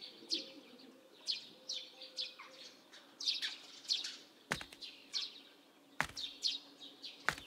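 Small birds chirping: short, high, falling chirps repeated throughout, with a few brief clicks.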